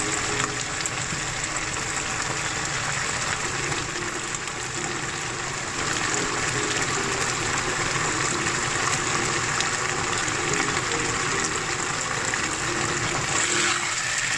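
Pork cubes in their marinade sizzling steadily in a nonstick wok. Near the end a spatula starts scraping and stirring them, and the sizzle gets louder.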